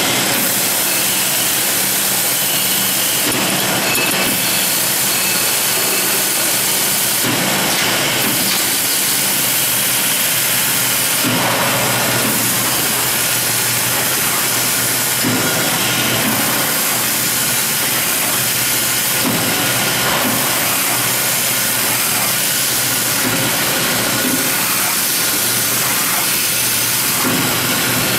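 Automatic band saw paper-log cutting machine running steadily, a loud mechanical whir and hiss of the band blade and drives, with a harsher swell about every four seconds marking its repeating cutting cycle.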